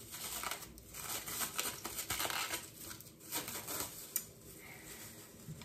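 Irregular rustling and crinkling of kitchen items being handled during food preparation, with a single sharp click about four seconds in.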